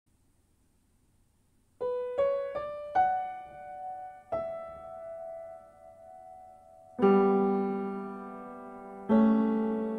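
Solo piano music. A slow melody of single notes begins about two seconds in, each note left to ring and fade. Two fuller chords are struck later and held as they die away.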